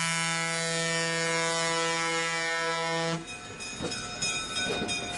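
Locomotive air horn sounding one long steady blast that cuts off about three seconds in, followed by the rumble and clatter of the train running.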